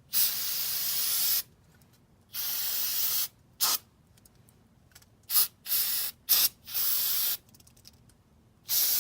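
Aerosol carburetor cleaner sprayed into a grimy pit-bike carburetor in a series of bursts: two of about a second each, then several short squirts and a few longer ones, with pauses between.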